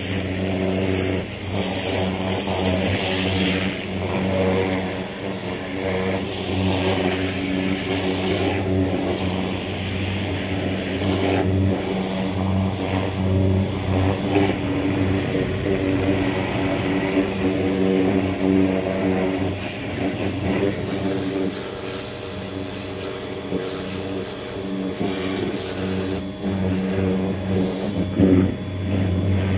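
Greenworks 1700 PSI electric pressure washer running with a steady pitched hum, its water jet hissing as it sprays a mower.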